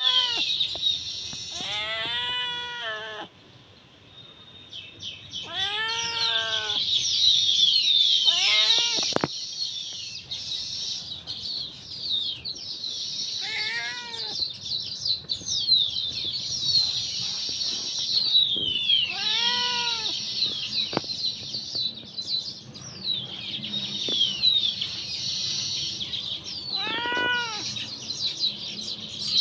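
Domestic cat meowing repeatedly, about seven drawn-out meows that rise and fall in pitch, several seconds apart. Birds chirp steadily behind the cat.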